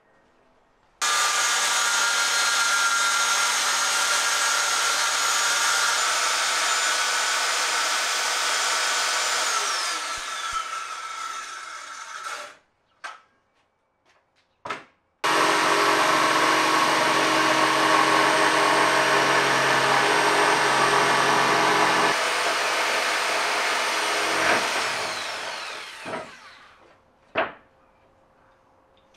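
Corded circular saw cutting plywood sheet in two long cuts of about ten seconds each, each starting abruptly and ending with the motor winding down in a falling whine. Short knocks between the cuts and near the end.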